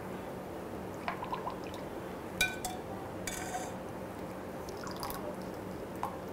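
Thick lemon syrup ladled into a glass of ice cubes: soft dripping and pouring, with a few small clinks of the ladle against glass and ice, the loudest about two and a half seconds in.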